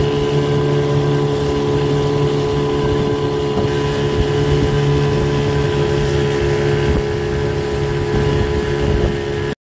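Outboard motor running steadily at an even speed, pushing a small boat along under way.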